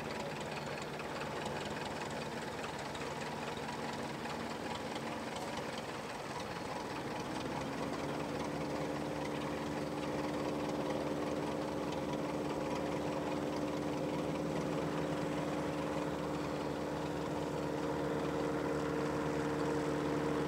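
Piper Cub floatplane's piston engine and propeller running; about seven seconds in the pitch rises as power comes up, and it then holds a steady, higher drone that grows slowly louder during the takeoff run on the floats.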